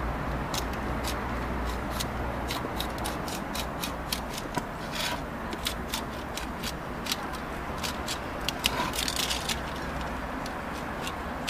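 Sharp knife trimming excess aluminium foil along the edge of a board, a run of irregular small clicks and crinkles as the blade catches and scrapes the foil.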